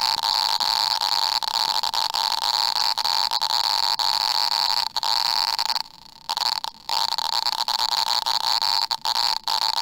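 Hiss of random electrical noise from a reverse-biased PN junction of an NPN transistor, amplified by an LM386 and played through a small speaker. The hiss is steady and cuts out briefly twice about six seconds in.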